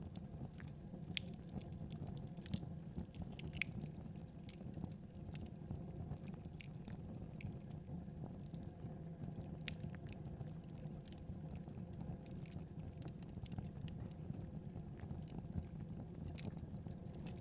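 Wood fire crackling, a steady low rumble of burning with frequent small sharp pops and snaps scattered irregularly throughout.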